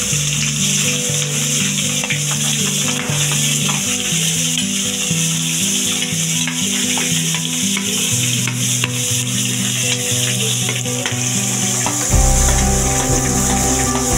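Sliced onions sizzling loudly and steadily in hot oil in an aluminium kadai, stirred with a steel ladle that scrapes and clicks against the pan now and then.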